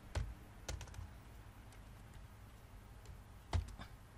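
A few scattered, sharp clicks from working a computer: one just after the start, a quick pair under a second in, and another pair near the end.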